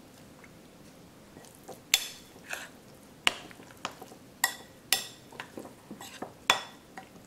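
A metal spoon stirs grated cassava and coconut milk in a ceramic bowl, clinking against the bowl about ten times in irregular strokes from about two seconds in.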